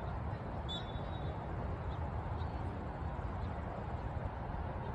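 Steady outdoor background noise, mostly a low rumble, with a brief faint high tone about a second in.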